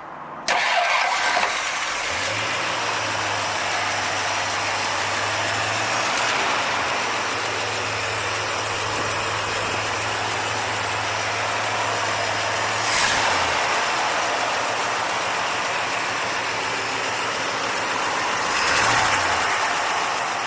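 1964 Ford Galaxie's 390 cubic-inch V8 running at idle, swelling briefly three times, a few seconds apart.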